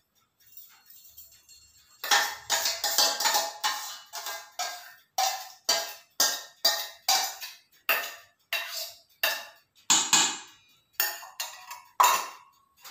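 A utensil tapping again and again against a small stainless steel bowl, about two to three ringing metallic knocks a second, knocking an ingredient out into the mixing bowl. The knocks begin about two seconds in, after a few faint clinks.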